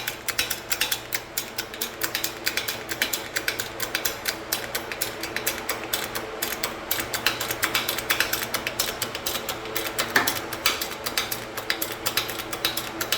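Hydraulic bottle-jack shop press being worked to push the centre of a rubber bushing out, with rapid clicking and creaking of the press throughout. A sharper crack comes about ten seconds in.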